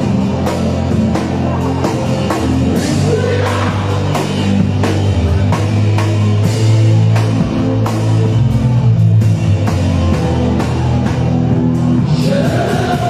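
Loud upbeat music with a steady drum beat and a heavy bass line, with a voice singing in places.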